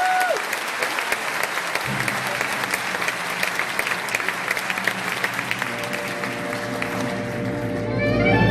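Theatre audience applauding steadily. About two seconds in, the band and orchestra sound a low held chord under the clapping, and the music swells near the end.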